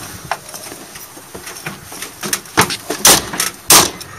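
Gurney being loaded into the back of an ambulance: scattered light clicks and knocks, then two loud clunks about three seconds and three and a half seconds in.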